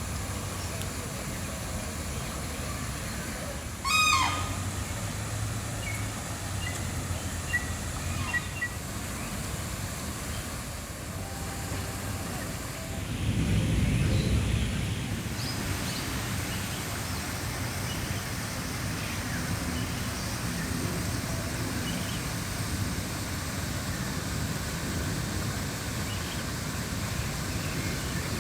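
A bird gives one loud, short call about four seconds in, followed by a few fainter chirps, over a steady low background hum. A low rumble swells and fades a little before the middle.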